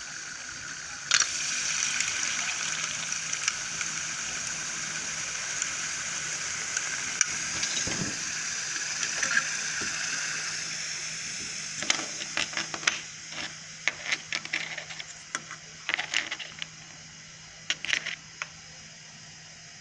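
Liquid nitrogen boiling with a loud hiss in a metal tin as a room-temperature plastic X-Wing miniature is dipped into it; the hiss starts suddenly about a second in and fades after about ten seconds. Then a run of small clicks and taps as the frozen plastic model is handled.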